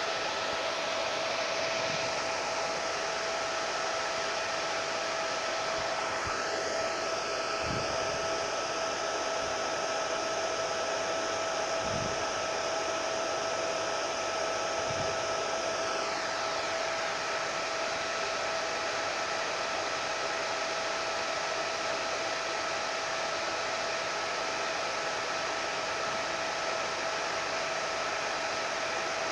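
Electric hair dryer running steadily: an even blowing noise with a steady motor hum.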